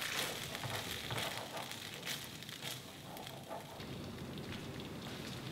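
Thick curry sauce sizzling and crackling in a frying pan on the heat, with a wooden spatula stirring through it at first.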